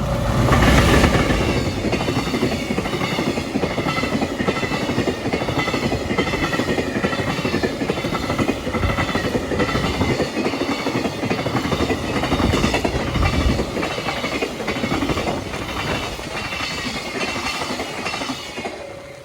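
A train running over jointed rail, its wheels clattering in a continuous clickety-clack over the rail joints, loudest in the first second or so.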